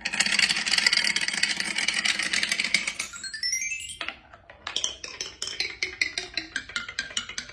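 Wooden marble-run toys: a dense clatter of marbles for the first few seconds and a rising sweep of tones. After about four seconds, a marble drops down a marble tree and strikes its leaf-shaped platforms one after another, each strike a short ringing note, about three or four a second.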